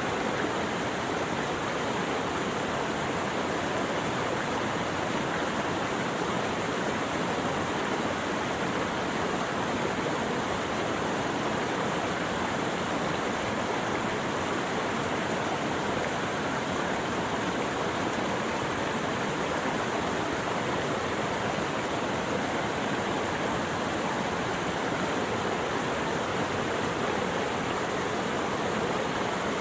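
Steady rushing water, an even unbroken hiss with no change in level.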